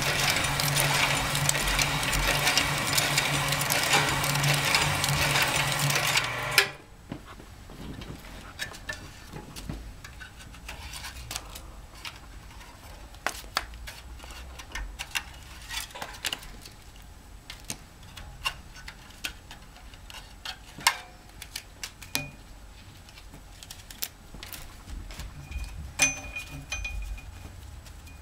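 ERSO 1005FB business card slitter running steadily as it slits a sheet into cards, then shutting off abruptly about six and a half seconds in. After that, scattered light clicks and taps as the cut cards are taken from the output bins.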